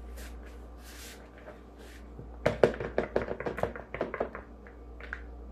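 A quick run of light taps and knocks, about two and a half seconds in: kitchen utensils and a mixing bowl being handled while cookie dough is mixed. It is preceded by soft rustling.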